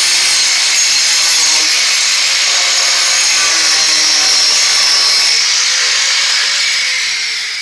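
A power tool running steadily with a loud, hissing noise, fading out at the very end.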